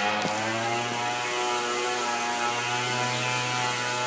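Leaf blower running steadily: a constant motor hum with a rush of air.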